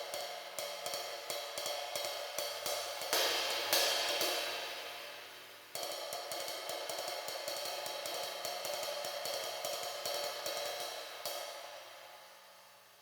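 PGB Artisan 20-inch sizzle ride cymbal (1780 g) played with a stick in a steady ride pattern, interrupted about three seconds in by two loud crashes whose wash rings and fades for a couple of seconds. The ride pattern then resumes and stops near the end, leaving the cymbal ringing out and fading.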